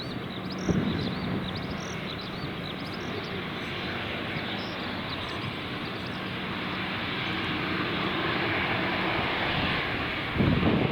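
Airliner engine noise growing slowly louder as the aircraft approaches, with small birds chirping over it in the first half. Wind buffets the microphone near the end.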